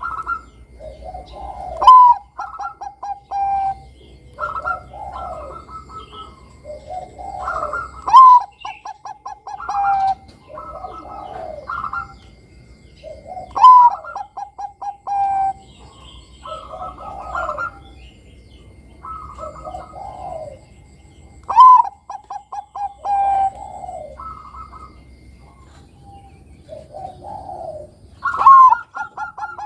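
Zebra dove (Bangkok-type perkutut) singing its song: phrases of rapid staccato coos, each opening with a loud note and followed by a run of quicker notes, repeated about five times at intervals of about six seconds.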